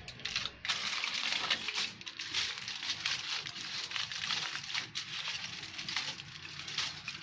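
Aluminium foil crinkling and crackling without a break as hands fold and press it around a roll.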